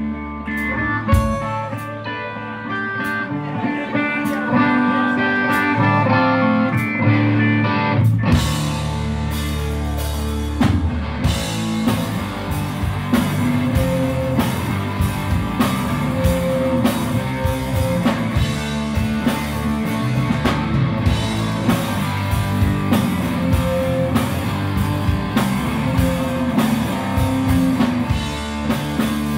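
Live rock band playing an instrumental passage on electric guitars, bass and drum kit. A guitar riff leads at first, and about eight seconds in the whole band comes in louder and fuller, with the drums driving on.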